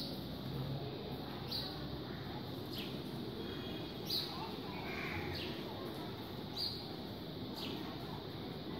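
Short, high chirps that fall in pitch, about six of them, repeating roughly every second and a quarter over a steady background hum.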